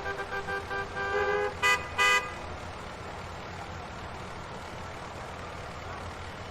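Car horns honking in congested traffic: a run of quick short toots, then two loud short blasts about two seconds in, after which steady traffic rumble carries on.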